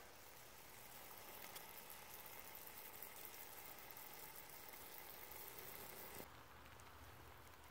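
Faint sizzling of ground beef, peppers and onions frying in a cast iron Dutch oven. The sizzle cuts off abruptly about six seconds in, leaving only a faint low rumble.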